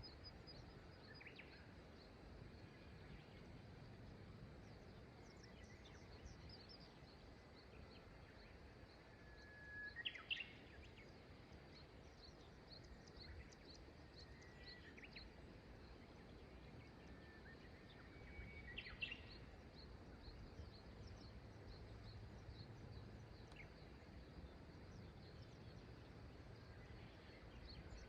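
Faint river sound under quiet outdoor ambience, with small birds calling now and then. The two clearest bursts of calls come about ten seconds in and again a little before twenty seconds.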